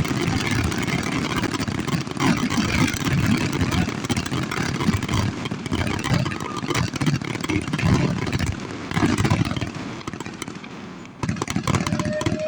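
Fireworks finale: a dense, continuous barrage of rapid bangs and crackling, heavily distorted by the microphone, thinning out about ten seconds in.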